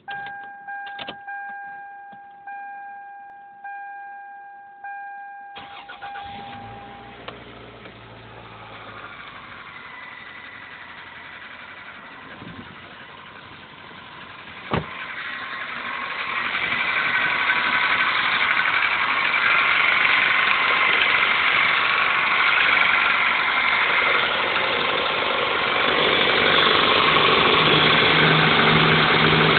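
Cold start of a 2000 Toyota 5S-FE 2.2-litre four-cylinder: a dashboard chime repeats about every 1.2 seconds, then about five seconds in the starter cranks and the engine catches. It then idles with a rattling noise that grows louder from about sixteen seconds in, with one sharp click near fifteen seconds. The rattle is a cold-start noise that clears once the engine warms up.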